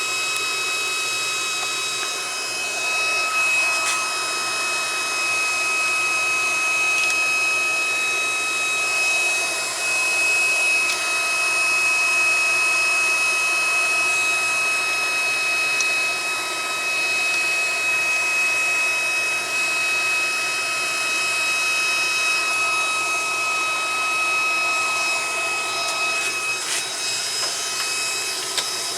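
Handheld induction heater running, its cooling fan giving a steady hiss with a steady high whine over it. A few light clicks of handling near the end.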